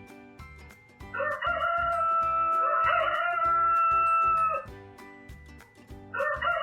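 A rooster crowing: one long held crow, with a second crow starting near the end, over background music with a steady beat.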